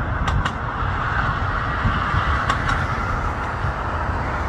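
Twin turbofan engines of an Airbus freighter jet at takeoff power during the takeoff roll: a steady roar with a strong hissing band and deep uneven rumble. Two pairs of faint brief clicks come a little after the start and about halfway through.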